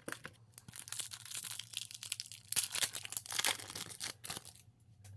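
A trading card pack's plastic wrapper being torn open and crinkled by hand, a run of crackling tears lasting about four and a half seconds.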